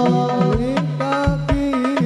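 Live sholawat hadrah music: hand drums beating a steady rhythm, the deep drum's note dropping in pitch after each stroke, under a held melody from male voices singing.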